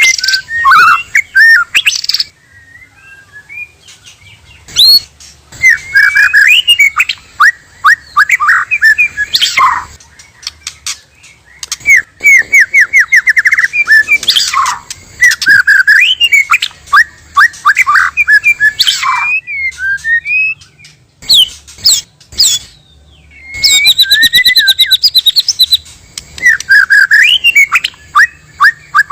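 White-rumped shama (murai batu) singing: loud, varied phrases of rapid whistled and chattering notes, some in fast trills, coming in bursts of a few seconds with short pauses between them.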